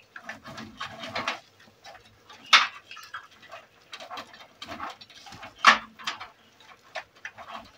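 Handling noise from connecting cables to PC hard drives: irregular rustling and small plastic clicks, with two sharp louder clicks, one about two and a half seconds in and one near six seconds.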